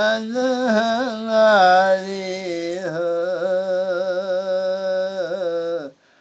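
A man singing a Sufi devotional manqabat in Urdu/Punjabi, holding long drawn-out notes with wavering ornaments in a single voice. He breaks off near the end for a breath.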